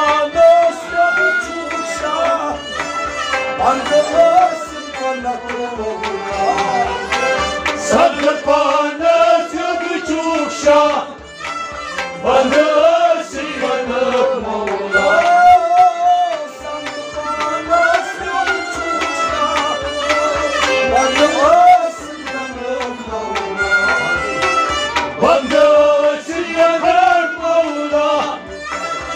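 Traditional Balochi Sufi folk music: a gliding melody carried over a steady hand-drum beat, with no transcribed words in this stretch of the song.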